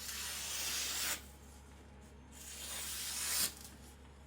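An 8670 steel chopper blade stroked along a 1000-grit Naniwa Professional water stone: two long scraping strokes of about a second each, each ending abruptly.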